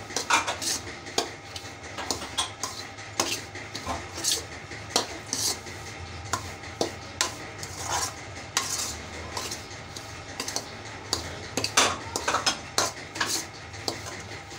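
A metal spoon scraping and clinking against a metal pan while stirring and roasting dry, crumbly semolina and grated coconut. Irregular scrapes and taps come roughly two or three times a second.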